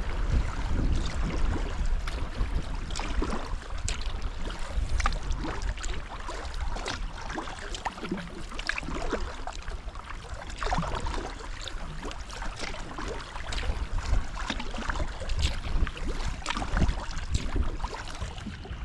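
Kayak paddled on a river: paddle blades dipping and splashing, with scattered sharp clicks and drips, over a steady wash of moving water and a low rumble.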